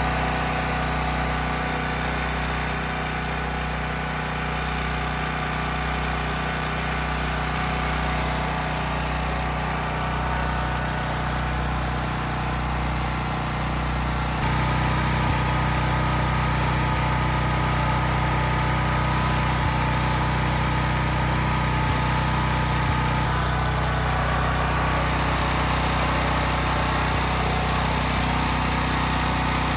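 Champion 11500/9200 W portable generator's single-cylinder engine running with no load while it warms up. The hum wavers slightly at first, then about halfway through gets a little louder and steadier.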